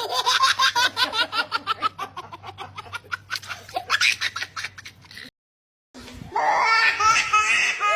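A baby laughing in quick, rapid giggles for about five seconds, then a short silent break and another baby's laughter starting, with swooping rises and falls in pitch.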